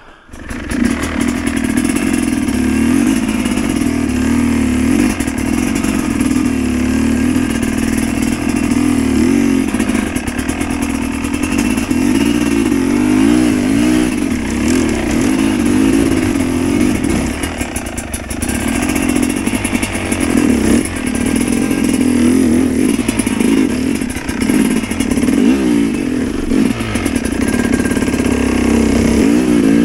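Two-stroke single-cylinder enduro dirt bike engine revving up and down under load on a steep loose climb. The engine note keeps rising and falling, with the throttle blipped and held.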